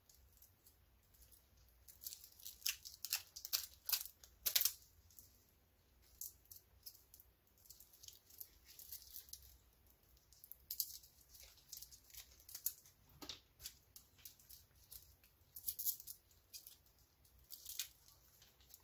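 Thin plastic wrap being peeled off a steel watch bracelet with gloved fingers: scattered crinkling and tearing, busiest a few seconds in and again near the end.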